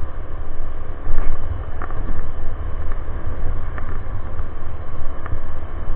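Strong wind buffeting the microphone during a ride on a moving e-bike: a loud, gusting low rumble with a few faint clicks.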